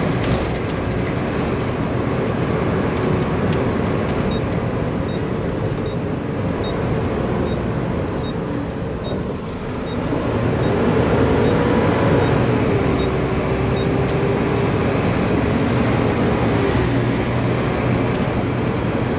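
Inside the cab of a Mack garbage truck, its diesel engine runs with steady road and cab noise as the truck drives and turns at low speed; the engine note rises about halfway through. A light, regular ticking, about three a second, runs through the middle part.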